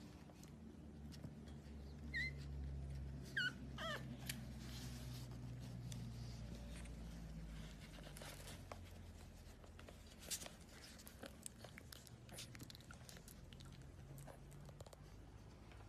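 French bulldog puppies whimpering: a few short, high squeaks that waver in pitch about two to four seconds in, over a low steady rumble, with scattered light clicks later on.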